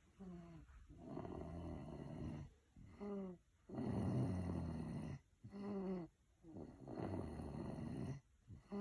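Snoring in slow, repeated breaths about every three seconds. Each breath is a long noisy snore followed by a short whistle-like note that falls in pitch.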